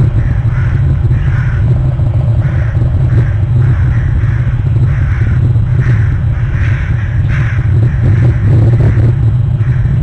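Crows cawing over and over, about two calls a second, over a loud, steady low rumble.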